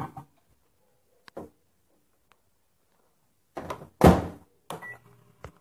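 Microwave oven door being shut: a few light clicks and knocks, then a loud thump about four seconds in as the door closes, followed by a short beep from the keypad.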